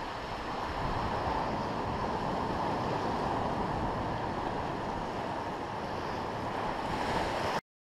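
Ocean surf washing up on a sandy beach, with wind on the microphone; a steady wash that cuts off abruptly near the end.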